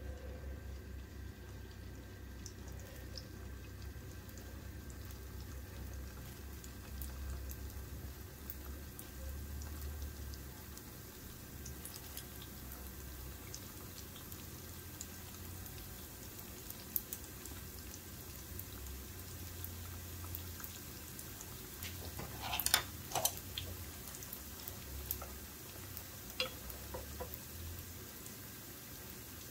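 Rice-paper spring rolls frying in a pan of hot oil, with steady sizzling and bubbling. A few sharp clicks sound against the pan, the loudest about 23 seconds in.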